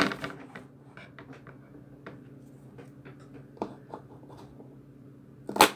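Scissors handled with small clicks and taps, then a single sharp snip near the end as they cut the plastic tape strap around a webcam box.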